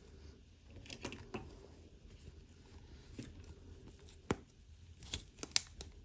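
Small plastic toy pieces and packaging being handled: scattered light rustling and clicking, with a sharp click a little past the middle and a quick run of clicks near the end.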